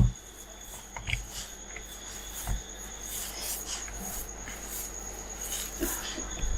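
Hands kneading and squeezing a stiff dough of oil-cake and bran fishing bait: soft rubbing and squishing with a few light knocks, and a sharp thump at the very start. A thin steady high trill, like a cricket, runs underneath.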